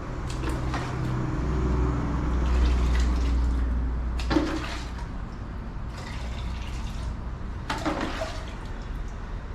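Water pouring and splashing into a clay tabletop fountain's basin as it is filled, swelling for a few seconds early on, with two short knocks.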